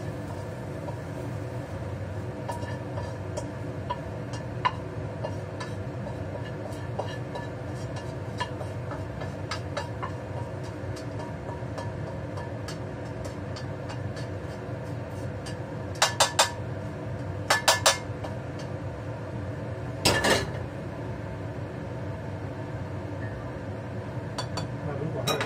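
A spatula scraping and tapping against a wok as stir-fried egg with tomato and carrot is emptied into a bowl, with scattered light clicks and a few quick clusters of sharp taps about two-thirds of the way through, followed by a louder clatter. Under it the steady hum of a kitchen range hood fan runs throughout.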